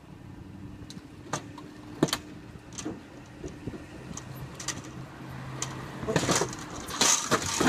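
Street traffic: a car engine runs with a steady hum, a few sharp knocks sound now and then, and a car passes close by near the end, louder.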